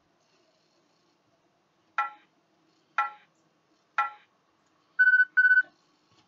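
Interval workout timer counting down: three short beeps a second apart, then two longer, steady beeps close together marking the end of the work interval and the cue to switch sides.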